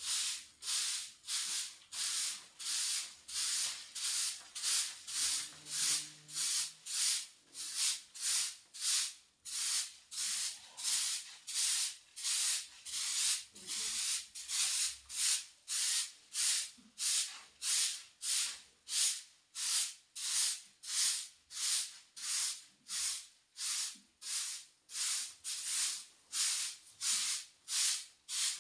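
Hand broom sweeping a dusty earthen floor: a steady rhythm of short swishes, about three strokes every two seconds.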